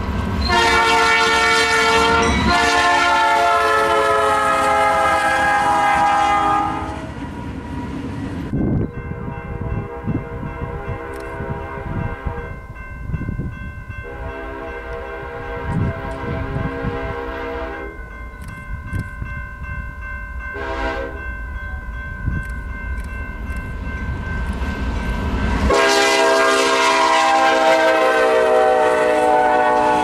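A BNSF locomotive's Nathan P3 horn blowing loud as it passes, its chord dropping in pitch before it stops about seven seconds in. Then the train's cars roll by with wheel clatter while a second train's horn sounds in fainter blasts. Near the end that horn comes in loud as the second train passes, also falling in pitch.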